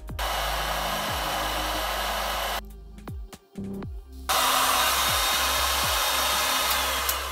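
Electric heat gun blowing a steady hiss of hot air onto a two-stroke crankcase main bearing, warming it so it expands enough for the crankshaft to pass through. It runs in two stretches with a break of about a second and a half, the second louder, fading near the end.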